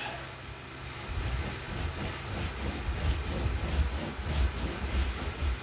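A scrap of carpet scrubbed back and forth over a diamond-plate toolbox lid, a continuous scratchy rubbing as polish is worked into the metal.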